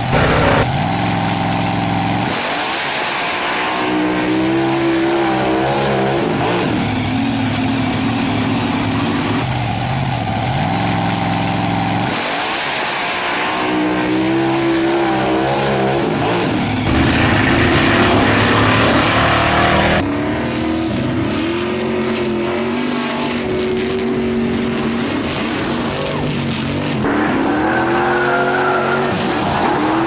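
Car engine sound effects: engines revving up and down over and over, with tyre squeals, in several pieces cut abruptly one after another.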